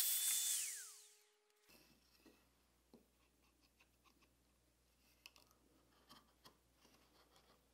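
Festool Domino joiner and its dust extractor winding down: rushing air and a falling whine that fade out within about the first second. After that come only faint, scattered taps and clicks as the wooden workpieces are handled and fitted together.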